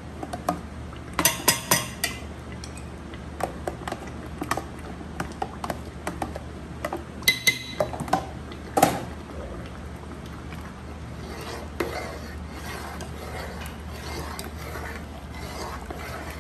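Steel ladle clanking against a large aluminium cooking pot while yogurt-and-onion paste is scraped into chicken qorma, with clusters of sharp knocks about a second in, around seven seconds in, and the loudest one near nine seconds. After that the ladle stirs the thick curry in the pot, a softer steady scraping and sloshing.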